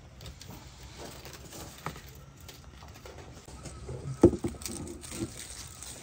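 A roasted bull leg being handled on a wooden board lined with lettuce: light scattered knocks and rustles, with one heavy thump about four seconds in.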